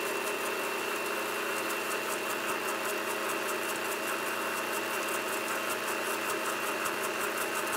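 High-powered countertop blender motor running steadily at its highest setting, a little bit loud, with a steady high tone over the motor noise, while oil is drizzled in to emulsify mayonnaise.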